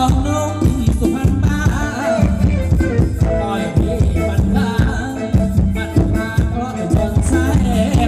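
Thai ramwong dance music played by a live band, with a steady drum beat under a sung melody.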